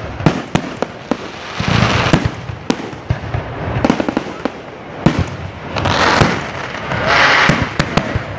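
Aerial fireworks shells bursting: many sharp bangs, some in quick clusters, with a few longer stretches of hissing noise between them.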